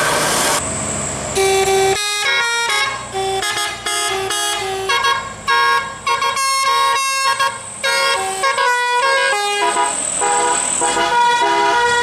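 Bus telolet musical air horn playing a fast multi-note tune of the Basuri type, its horns tooting a quick run of changing pitches. A brief rush of noise comes before the tune starts about a second and a half in.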